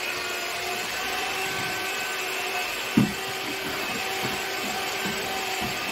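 Steady hum of a small motor running, with one sharp knock about three seconds in.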